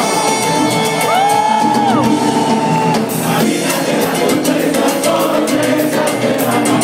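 Live salsa band with singer, recorded from the audience of a theatre. A long held note runs through the first three seconds, with brief rising-and-falling glides over it, before the full band with Latin percussion carries on.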